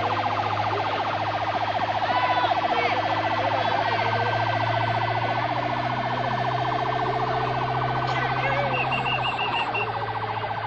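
Outboard motor running steadily at speed, a continuous high whine with a low hum under it.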